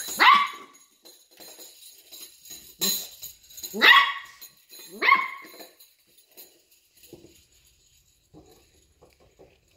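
Puppy barking at a strap of potty-training bells, which jingle as it paws and jumps at them. A falling yelp at the start, a jangle of the bells about three seconds in, then two barks about a second apart, with only faint jingles and scuffles after.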